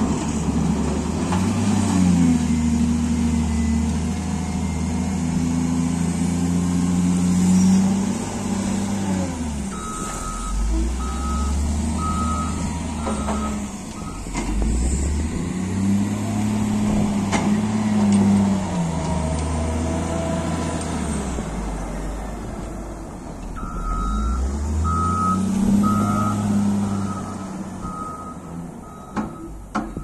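Caterpillar 950 wheel loader's diesel engine working, revving up, holding and dropping back again and again as the machine loads and manoeuvres. Its reversing alarm beeps about once a second in two spells, from about ten seconds in and again over the last six seconds.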